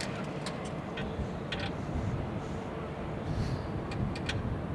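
Dockside ambience across the harbour: a steady low rumble with a faint steady hum, and a few short, sharp high ticks scattered through it.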